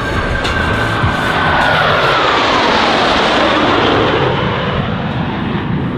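US Navy Blue Angels F/A-18 Hornet jet flying past with a loud roar, its engine whine holding high and then falling steadily in pitch from about a second and a half in as it goes by.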